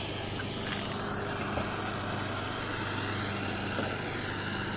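Handheld propane torch burning with a steady hissing rush, with a couple of light knocks as the oak board is handled on the workbench.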